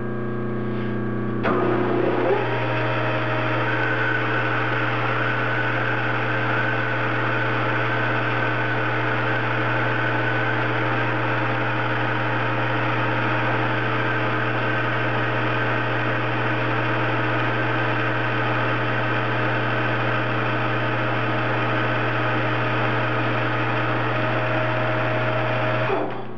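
Metal lathe starting up about a second and a half in, with a short rising whine as the chuck comes up to speed. It runs steadily through a 0.050-inch roughing pass on a 416 stainless steel blank, then switches off and winds down near the end.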